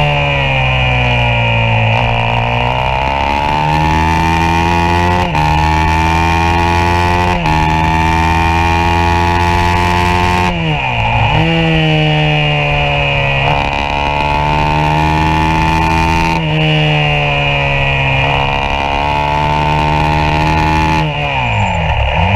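Yamaha YZ450F single-cylinder four-stroke engine at race pace, revving up through the gears with quick breaks at the upshifts. About halfway and again near the end the revs drop sharply as the throttle is shut for a corner, then climb again.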